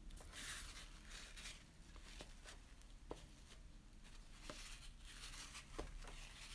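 Faint rustling of a crumpled paper towel dabbed and pressed onto damp watercolour paper to blot the paint, in two soft stretches with a few light ticks between.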